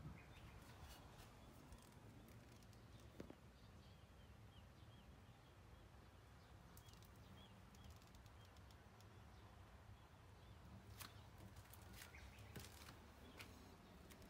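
Near silence outdoors: a low steady background with faint, quick bird chirps repeating in the first half and a few light clicks near the end.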